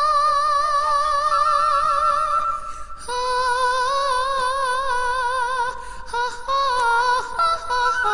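Background music: a Cebuano folk song, a woman's voice singing two long held notes with a wavering vibrato, then a run of shorter notes near the end.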